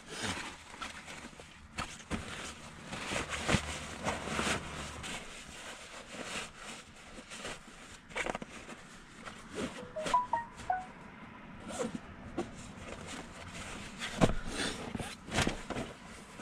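Sleeping bag and stuff sack rustling and crumpling as they are packed by hand, with irregular bursts of fabric noise and a few sharp handling knocks.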